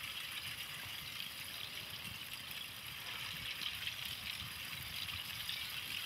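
Glowing a'a lava flow giving off a steady, fairly high hiss with a fine crackle.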